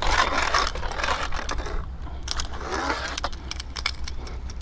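Wind buffeting the microphone, with quick metallic clicks and rattles from handling a just-landed small trout on the line.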